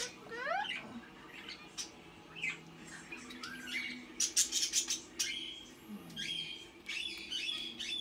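Pet parrots giving short squawks and chirps, some rising in pitch, with a dense run of sharp squawks about four to five seconds in.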